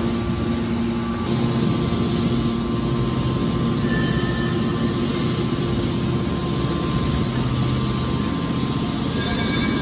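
Hydraulic scrap-metal baler running: its motor and hydraulic pump give a steady hum with several held tones while the machine works its lid over the chamber of steel scrap.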